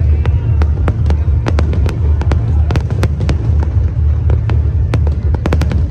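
Fireworks display going off in rapid succession: many sharp bangs and crackles, several a second, over a constant low rumble.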